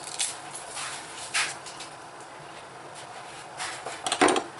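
Small scraping and rustling of a garlic clove being peeled with a small kitchen knife, then a short clatter about four seconds in as things are set down on the kitchen countertop.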